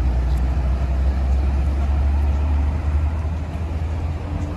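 Low, steady engine rumble of a city bus driving past on the street, easing off slightly near the end, with general street traffic underneath.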